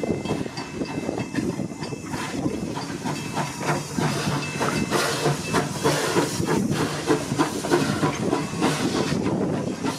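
Steam locomotive and its train: steam hissing steadily, with irregular clicks and clatter from the wheels on the rails.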